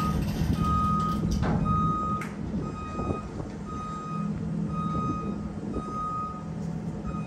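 A vehicle's reversing alarm beeping about once a second over the steady drone of a running engine.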